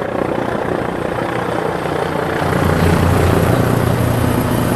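Air ambulance helicopter flying low overhead, its rotor beating rapidly. It gets louder from about two and a half seconds in.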